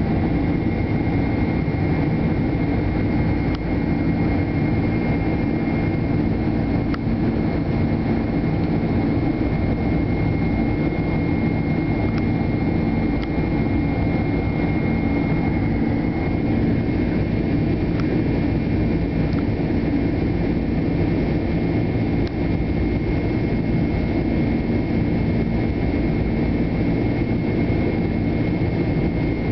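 Boeing 747-8's GEnx jet engines heard from inside the passenger cabin during the climb after takeoff: a steady, loud rumble with a thin whine above it that eases slightly about halfway through.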